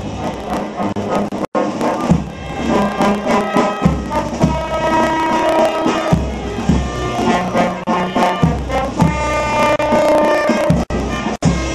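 Processional brass band playing, with sustained horn notes over steady drum strokes.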